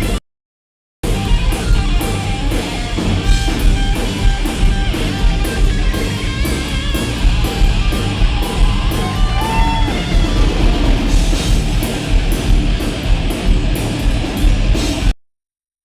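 Heavy metal band playing live at full volume, with distorted electric guitars over a pounding drum kit. The sound cuts out completely for about a second near the start and again just before the end, dropouts caused by the camera muting its microphone while zooming.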